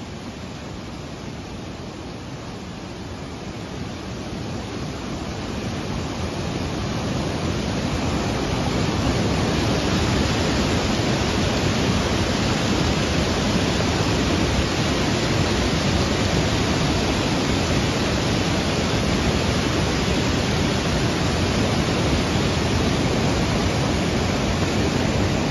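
Fast floodwater rushing in a torrent and breaking into spray against posts and walls, a dense, even rush of water noise with no lulls. It grows louder over the first several seconds, then holds steady.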